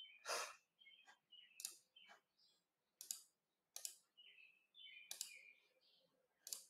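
Faint computer mouse clicks, several at uneven intervals over a quiet room.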